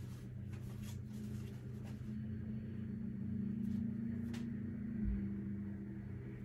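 A steady low mechanical hum in a small room. The hum swells slightly in the middle and drops back with a soft low thump about five seconds in. Faint rustles and clicks come from papers and small items being handled.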